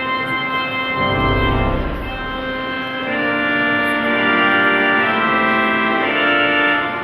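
Organ playing slow, held chords, with a deep bass note about a second in and a change of chord about three seconds in.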